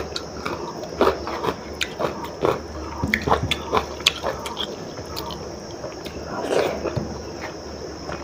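Close-up mouth sounds of a person eating soft khichdi by hand: irregular wet chewing and lip smacks, with many short clicks.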